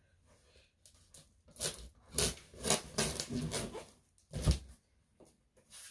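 Packing tape on a cardboard shipping box being slit and torn, with scratchy, irregular rips and cardboard handling, and a single dull thump of the box about four and a half seconds in.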